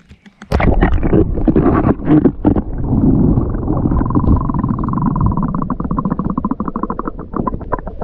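Camera microphone plunging into stream water about half a second in, then muffled underwater rushing and bubbling, turning into a rapid fluttering near the end.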